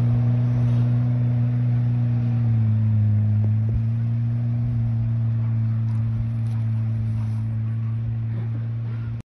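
Vehicle engine running at steady revs, a low steady drone whose pitch drops slightly about two and a half seconds in, then cuts off suddenly.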